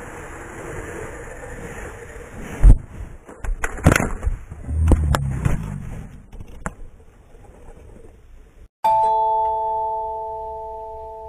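Small toy helicopter's electric motor and rotor buzzing with a high whine, cut off by a loud hit about two and a half seconds in as the helicopter strikes the face, followed by scattered knocks and clatter. About nine seconds in, a doorbell-like chime of three steady tones rings out and slowly fades.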